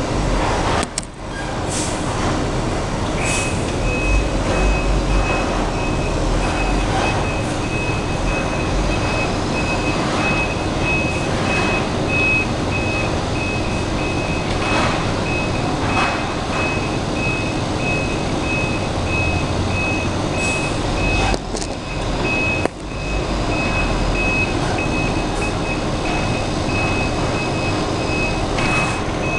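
Dumpster-collection truck with its engine running, its reversing alarm beeping in a steady repeating tone from about three seconds in, with a few sharp knocks.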